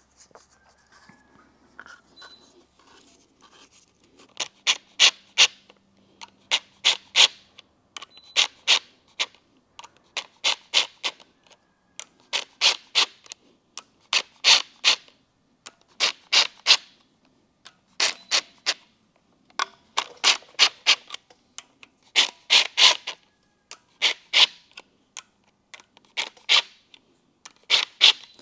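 Cordless impact driver hammering in short trigger pulses, a few sharp rattling strokes at a time in repeated groups a second or two apart, running down bolts on an LS V8's rear engine cover. It starts about four seconds in.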